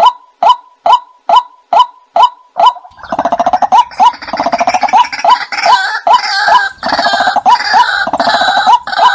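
White-breasted waterhen calls on a recorded bird-luring track: a steady run of short 'kwak' notes about twice a second. About three seconds in, a loud, harsh croaking and gurgling chorus joins them. Near the end the plain repeated notes carry on alone.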